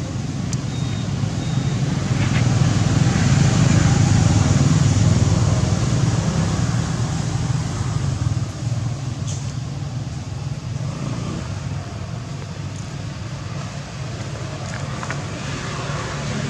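Steady low rumble of road traffic, swelling for a few seconds as a vehicle passes, then easing off.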